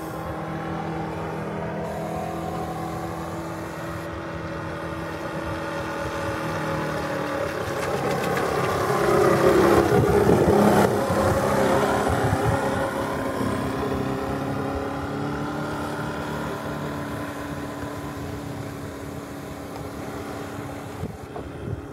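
Four-stroke engine of a radio-controlled model boat running steadily on the water, growing louder as the boat passes close about ten seconds in, its pitch dropping as it goes by.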